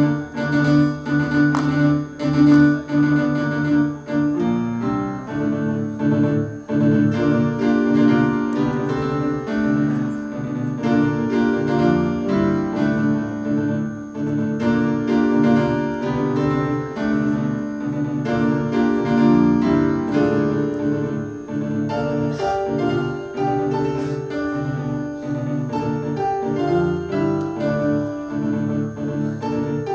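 A live duet on two electronic keyboards in a piano voice: chords in the low and middle range with a melody moving over them, playing without a break.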